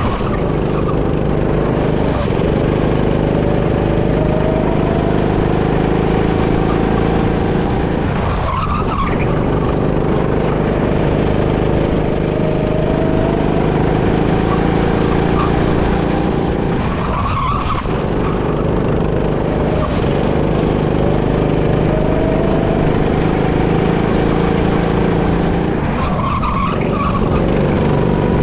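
Go-kart engine running hard on a lap, its pitch climbing slowly along the straights and dipping briefly three times, about nine seconds apart, through the corners, with tyres scrubbing.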